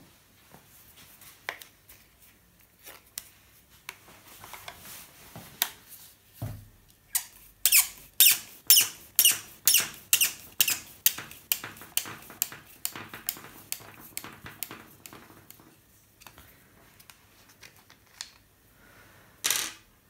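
Screwdriver backing a screw out of a Bosch angle grinder's housing: a run of short squeaks, about two a second, one with each turn.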